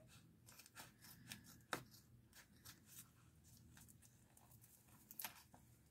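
Scissors snipping through plastic packaging: a scatter of faint, short snips and clicks, with a louder snip about two seconds in and another near the end.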